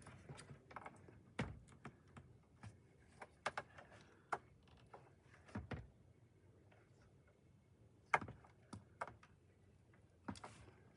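Faint, irregular light clicks and knocks as a backup camera is plugged into its connector and fitted back into its plastic mount with screws.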